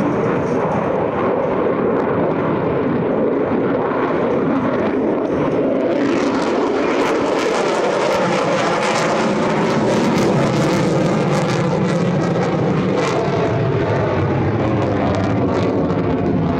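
F-35C Lightning II's F135 jet engine running loud and continuous during a demonstration turn; about six seconds in it turns harsher, with a crackling hiss added on top.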